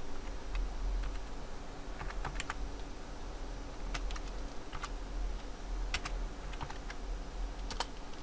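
Typing on a computer keyboard: sparse, irregular key clicks, some in quick little clusters, over a low steady hum.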